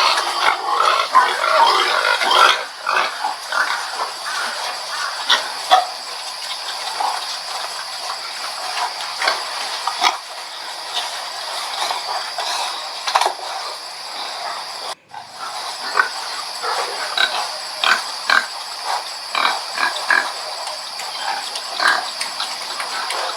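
Pigs grunting in a rapid, irregular string of short calls, busiest at the start, with a brief break about fifteen seconds in.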